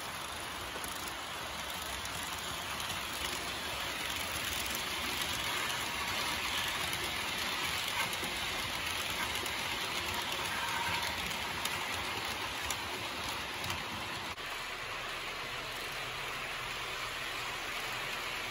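H0-scale model freight trains rolling on the layout's track, including a PIKO Vectron locomotive hauling Märklin container wagons: a steady rolling hiss of the small wheels on the rails, with faint clicks. It grows a little louder in the middle as the container wagons pass close by.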